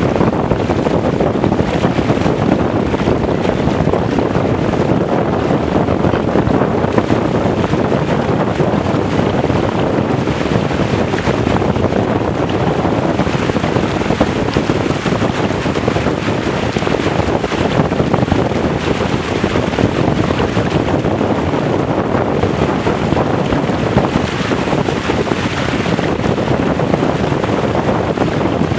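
Loud, steady wind noise on the microphone over the rush and splash of water along the hull of a Weta trimaran sailing fast.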